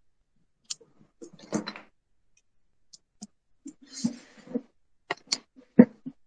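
A scattered run of clicks, knocks and rustles with a louder thump near the end: someone handling things while settling at a computer desk.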